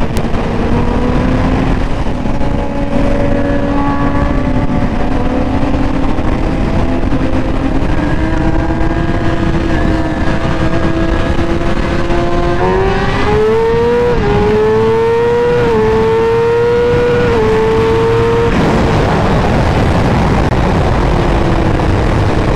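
Kawasaki ZX-10R sportbike's inline-four engine, first cruising with the revs slowly climbing. About halfway through it pulls hard up through the gears, with three upshifts, each a quick rise in pitch followed by a sudden drop. Near the end the throttle closes and wind rush takes over.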